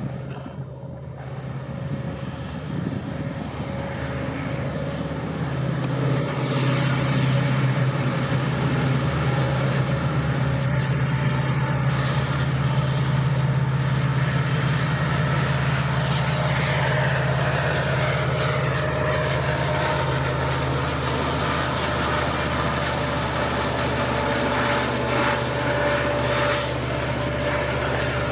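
A WDP4D EMD diesel locomotive passing close by, its engine drone building over the first several seconds and then holding loud and steady. Some higher tones slide downward in pitch midway, and faint rhythmic ticks come in near the end.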